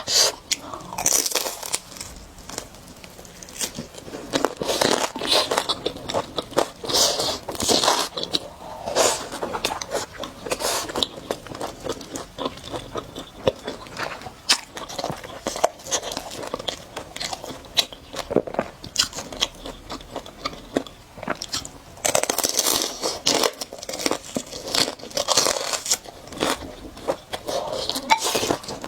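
A person eating spicy noodles, chewing and biting close to the microphone in a run of many short, irregular mouth sounds.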